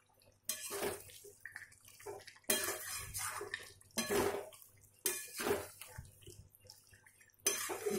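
A metal spatula scraping and knocking against a metal pan as thick, oily mutton curry masala is stirred and fried, in irregular strokes a second or two apart.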